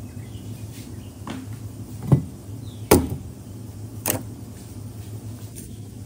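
Objects knocked and set down on a table: four sharp knocks, the loudest two near the middle about a second apart, over a steady low hum.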